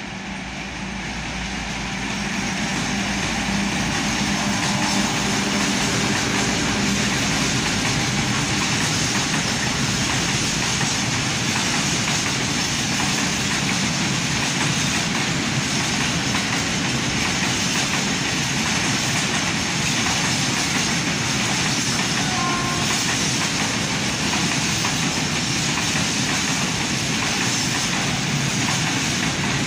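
ST44 diesel locomotive with its two-stroke V12 engine passing at the head of a freight train, its engine note loud for the first several seconds. A long string of open steel freight wagons then rolls by with a steady rumble of wheels on rail.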